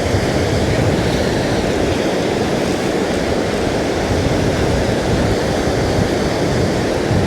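Steady wind buffeting the microphone over breaking surf, a constant low rushing noise.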